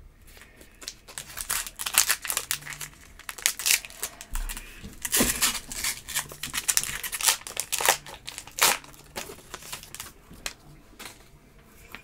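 Baseball card pack wrapper crinkling and tearing as it is opened by hand, with cards being handled, in a run of irregular crackly rustles that die down near the end.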